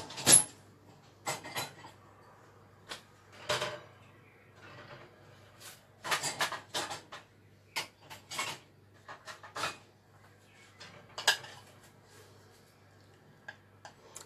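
Kitchen clatter of dishes, pots and utensils being handled: irregular clinks and knocks, the loudest just after the start.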